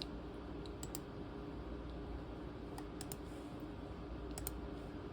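A few sharp clicks from the controls of a ThinkPad T23 laptop as it is worked by hand, coming singly or in close pairs about a second or more apart, over a steady low hum.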